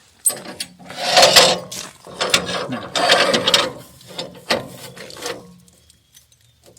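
Woodland Mills HM130 Max sawmill being worked by hand: a series of irregular ratcheting, rasping mechanical strokes, which stop about five and a half seconds in.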